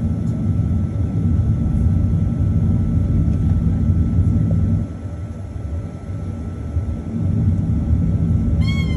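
Cabin rumble of a Boeing 737-900 taxiing, its CFM56 engines at taxi power and the wheels rolling on the taxiway. The rumble eases about five seconds in and swells again a couple of seconds later; a brief high squeak sounds near the end.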